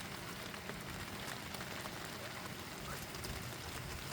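Light rain falling in a drizzle, with many small drops ticking.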